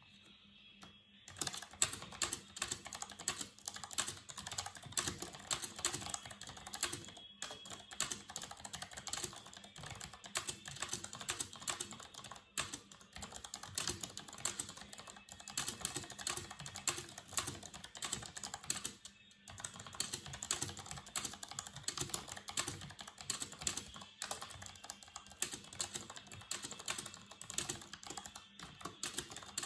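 Fast, continuous typing on a Tecware Phantom L mechanical keyboard with Outemu Brown tactile switches, starting about a second and a half in and pausing briefly a few times.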